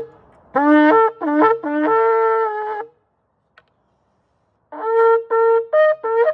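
A shofar blown in two different calls: three notes that each jump up in pitch, the last held for about a second, then after a pause a quick run of about six short blasts. These are the shofar calls for repentance and for jubilation.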